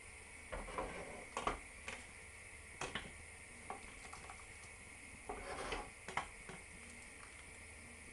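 Thick tomato sauce poured from a frying pan over meatballs in a ceramic dish: soft splashing and slopping of the sauce, with scattered light clicks and knocks of the pan against the dish, over a faint steady hum.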